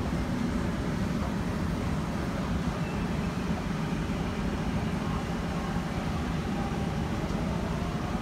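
MTR Kwun Tong Line C-Train running out of the station past the platform screen doors: a steady low rumble, with a faint whine rising near the end.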